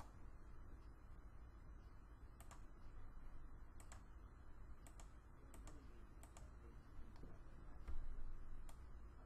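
Computer mouse clicks: about ten short, sharp clicks at irregular intervals, some in quick pairs, over a faint low hum.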